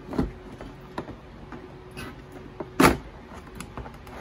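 Plastic body panel on a Yamaha Kodiak 700 ATV being pulled free by hand: several sharp plastic snaps and clicks as its clamps let go, the loudest a little under three seconds in.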